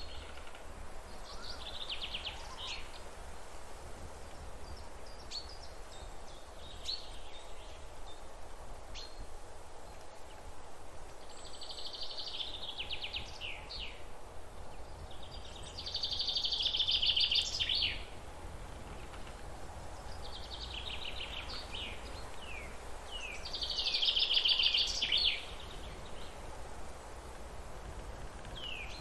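Forest birdsong: songbirds sing short trilled phrases every few seconds, each ending in a few quick downward-slurred notes, the loudest about halfway through and again near the end. A steady low background hum runs beneath.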